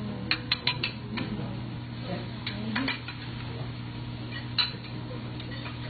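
Metal spatula clinking and tapping on a teppanyaki griddle: a quick run of four clicks near the start, then a few scattered single clicks, over a steady low hum.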